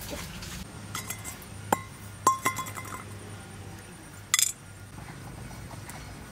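Pieces of dried tamarind dropped into a stainless-steel bowl: a few sharp clinks, each leaving the bowl ringing briefly, then a short clatter about four seconds in.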